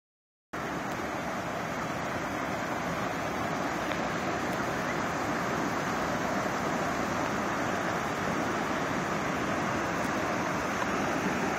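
Creek water rushing steadily over rocks and small cascades, starting abruptly about half a second in.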